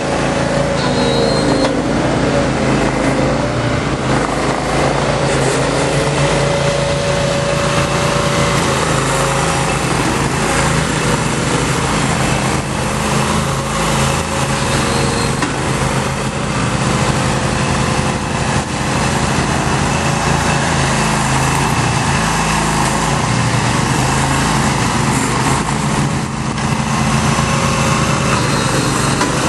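Engines of compressed earth block machines running steadily at constant speed.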